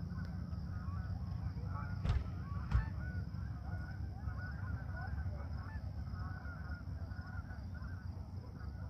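A flock of Canada geese honking in flight, many short overlapping honks throughout, over a steady low rumble. Two small knocks come about two and three seconds in.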